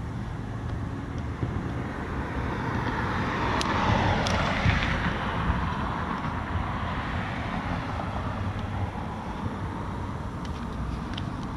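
A car passing by, its tyre and engine noise swelling to a peak about four to five seconds in and then fading, over a steady outdoor rumble with a few faint clicks.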